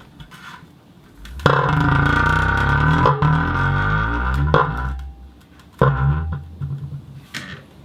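Plastic ball rubbing around inside a dog food bowl, setting the bowl ringing with a loud, wavering, many-toned hum that starts suddenly and lasts about three seconds. A shorter burst of the same ringing follows about six seconds in.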